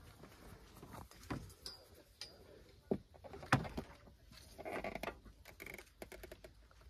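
Hands fastening a tie-down strap under the edge of a hard-shell rooftop tent: scattered small clicks and taps of strap and fitting being handled, with two sharper clicks about three seconds in.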